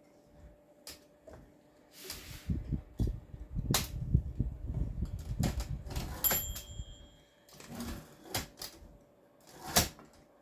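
Olympia SM3 manual typewriter being worked: scattered sharp clicks and clunks of its mechanism, with a low rattling clatter from about two to seven seconds in. A short high ring sounds about six seconds in.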